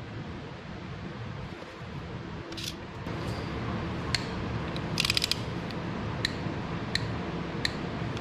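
Socket ratchet clicking as small bolts are tightened: single sharp clicks under a second apart, with a quick run of clicks about five seconds in.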